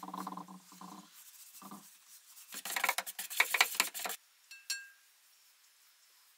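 Rough scraping and rubbing on a hard surface in quick, uneven strokes for about a second and a half, followed by a single light metallic clink that rings briefly.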